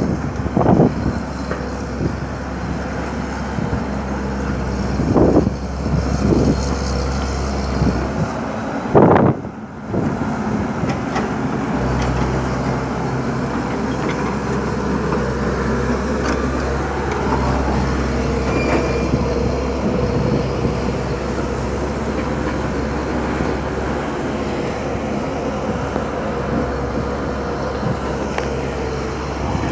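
Komatsu PC130 hydraulic excavator's diesel engine running steadily, with a few short knocks in the first half.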